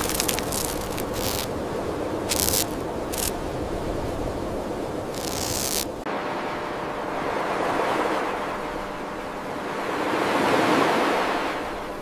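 Irregular crackling over a steady rushing noise, which stops abruptly about halfway through; then ocean waves washing in and drawing back, swelling twice.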